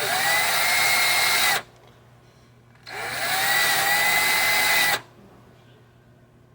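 Cordless drill spinning a brush attachment in two bursts of about two seconds each, its whine rising as it spins up, then holding steady before it stops, while it scrubs carbon off electrical contacts.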